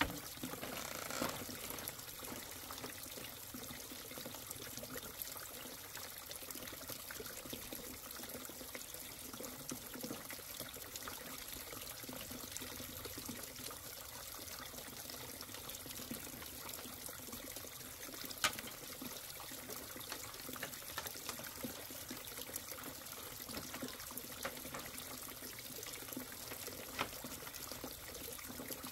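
Steady running, trickling water, with a sharp light click about eighteen seconds in.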